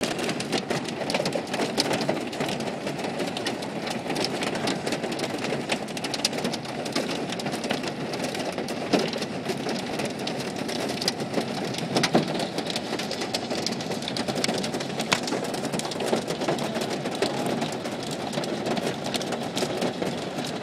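Rain and hail pelting a car's roof and windows, heard from inside the car: a dense, continuous patter full of sharp clicks from individual hits, with a couple of louder knocks about nine and twelve seconds in.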